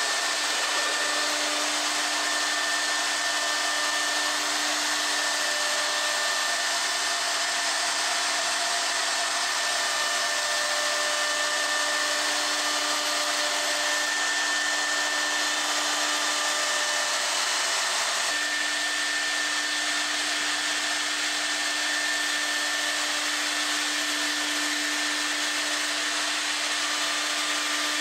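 Router spindle motor with a dovetail bit running at steady high speed: a constant whine in several tones over a loud hiss, with a slight shift in tone about 18 seconds in.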